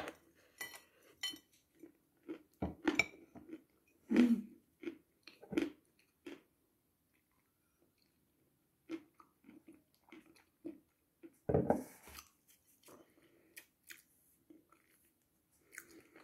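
Dry chunks of edible chalk bitten off and chewed close up: a run of crisp crunches with softer chewing between. There is a brief near-quiet pause in the middle, and the loudest crunch comes about twelve seconds in.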